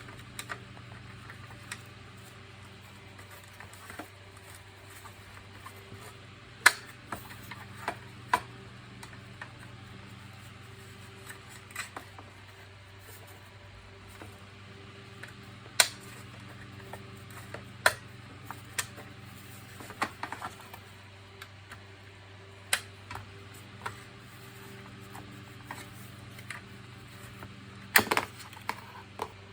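Hands working on the plastic housing of a vacuum cleaner being taken apart: scattered sharp clicks and light knocks at irregular intervals, with a steady low hum underneath.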